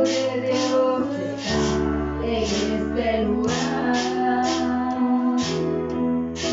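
Electronic keyboard playing a slow worship song, with sustained chords over a bass line that changes every couple of seconds and a built-in drum rhythm keeping a steady beat about twice a second. A woman sings along.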